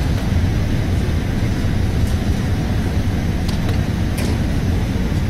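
Steady low rumble of an Airbus A380's Rolls-Royce Trent 900 engines and the airflow over the airframe, heard from inside the passenger cabin during the descent to land. A few faint high clicks sound over it.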